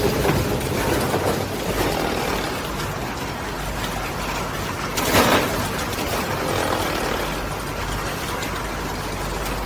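Paint brush filament mixing machine running steadily, with one brief, louder burst of noise about halfway through.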